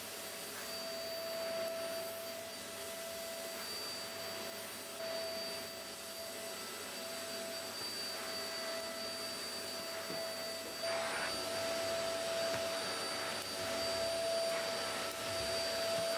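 Canister vacuum cleaner running steadily with a high whine as its floor head is pushed over carpet; it gets a little louder about eleven seconds in.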